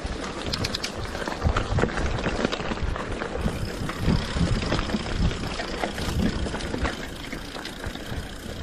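Mountain bike ridden over a rough dirt trail: tyres rolling on dirt and dry leaves, with the bike rattling and knocking over bumps.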